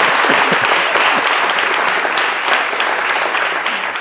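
Audience applauding: dense clapping from a roomful of people.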